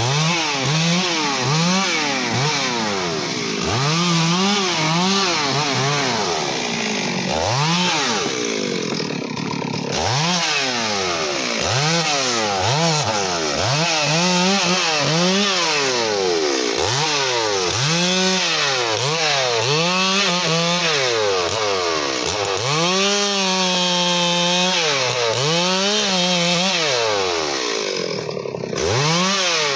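Stihl MS 382 two-stroke chainsaw revving up and down over and over as it cuts branches off a felled teak trunk, with one longer stretch held at high revs a little past two-thirds of the way in.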